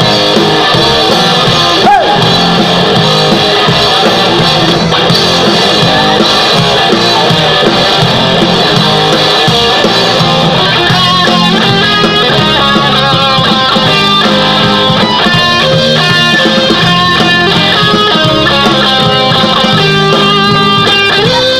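Rock band playing live: electric guitars over drums in an instrumental passage, loud and continuous, with a run of quick changing guitar notes from about halfway.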